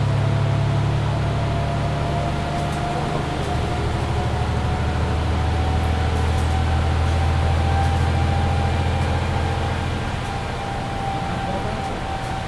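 Mercedes-Benz Citaro C2 hybrid bus under way, heard from inside: a steady low engine drone with a thin whine that slowly rises in pitch. The drone drops a little in pitch about three seconds in.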